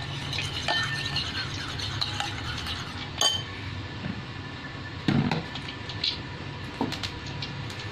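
Metal spoon clinking against a ceramic bowl while beating eggs: quick light clinks for the first few seconds, one sharper clink a little after three seconds, then a few scattered knocks.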